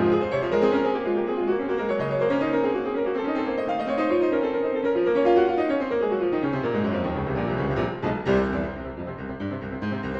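Background piano music: quick, many-note playing, with a run of notes stepping downward about six seconds in.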